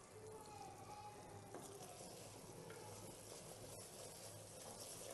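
Faint sizzling of mutton korma cooking in an uncovered pot, with a wooden spatula stirring through the thick gravy in the later part.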